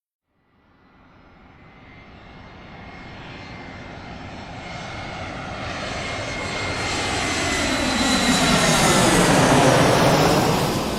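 Fixed-wing airplane flying past. Its engine sound fades in from silence about half a second in and grows steadily louder for about nine seconds as it approaches, with a steady high whine over the noise. It peaks and begins to fade as the plane passes.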